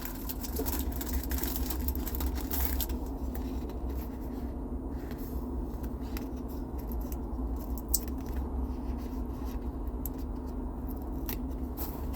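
A steady low hum with a few faint clicks and scratches from small handwork on a car's climate-control buttons, one sharper tick about eight seconds in.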